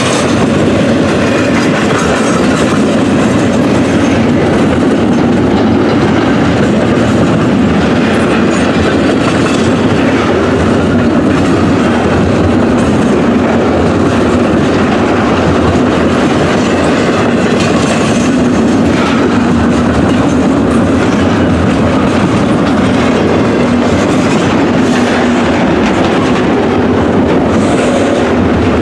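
Canadian National double-stack intermodal freight train passing close by: a loud, steady rumble of container well cars, their steel wheels rolling on the rails.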